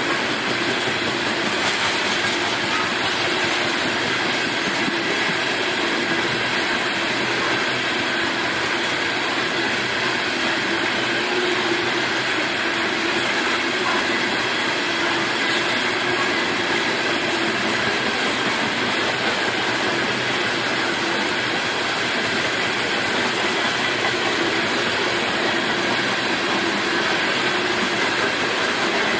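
Train cars rolling past at a road crossing: steady wheel-on-rail noise that holds at one level throughout.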